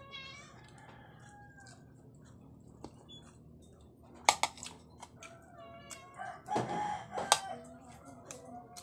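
Metal spoon and fork clinking and scraping on a plate during a meal, with sharp clinks about four seconds in and again around seven seconds, along with a heavier knock. Short animal calls, fowl-like, sound in the background near the start and around six seconds.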